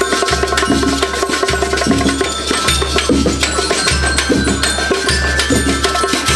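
School rhythm band playing: snare drums, congas and other percussion beat out a fast, steady rhythm over a repeating low bass figure, with a few higher ringing notes.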